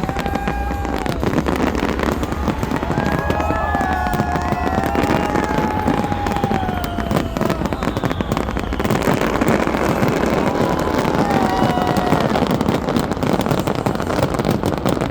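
Large fireworks display: a dense, continuous barrage of bangs and crackling, with long wavering whistle-like tones over it at times.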